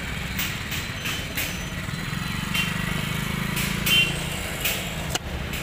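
Scattered light clicks and taps of a plastic oil filter cap being handled and screwed into its housing, with one sharp click about five seconds in. A steady low mechanical hum runs underneath.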